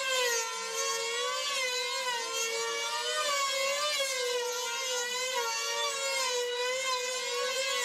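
Two F2D combat models' small 2.5 cc glow engines running flat out together, their pitch wavering up and down in slow waves as the planes circle and swoop on their control lines.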